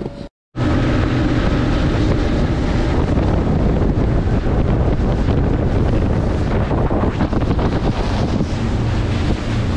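Twin Mercury outboard motors running a boat at speed, with heavy wind buffeting the microphone and water rushing past the hull. It begins after a brief moment of silence near the start.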